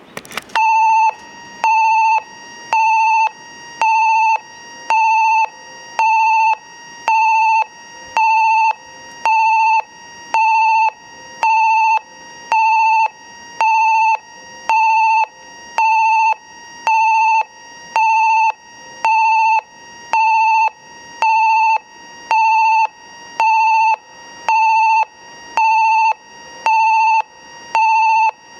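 Station train-approach warning buzzer sounding: a loud electronic beep of one steady pitch, about half a second long, repeating about once a second, which starts about half a second in. It signals that a train is approaching the station.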